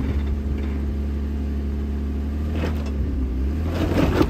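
Jeep Wrangler's engine running low and steady under light throttle as the Jeep crawls slowly over a rock ledge.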